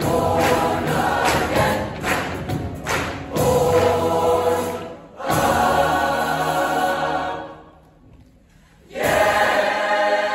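Large mixed choir singing a gospel-style song, backed by piano, guitar and drum kit, with the drum beat marking time in the first few seconds. The choir holds a chord that cuts off into a sudden pause of about a second, then comes back in together at full strength near the end.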